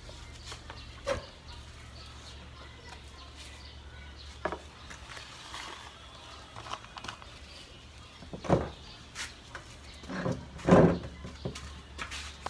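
Plastic colander holding wet black pepper seeds being handled and set into a plastic basin: scattered light knocks and clicks, with two louder sounds about eight and a half and eleven seconds in.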